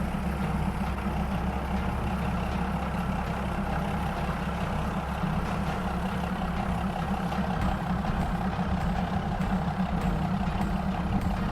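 Diesel locomotive engine idling steadily at the platform, a constant low drone.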